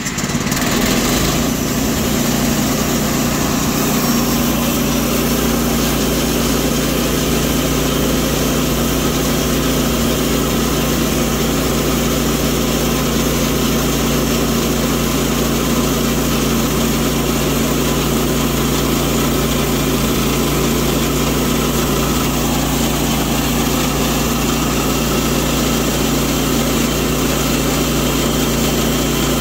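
Woodland Mills HM122 bandsaw sawmill running steadily under load, its engine holding an even pitch as the band blade saws through a pecan cant.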